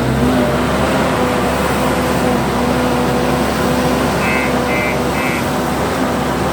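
JCB 155 skid steer loader's diesel engine running steadily under work. Near the end come three short, evenly spaced high beeps, like a reversing alarm.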